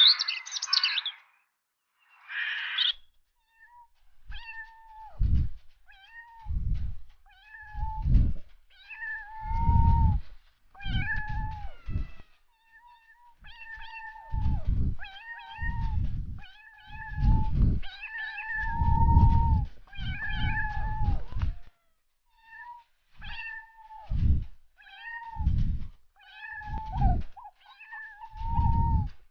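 A cat meowing over and over, about every second and a half, each meow a fairly high, level call that drops off at the end, with a low rumble under many of them. Two short rasping noise bursts come before the meows start.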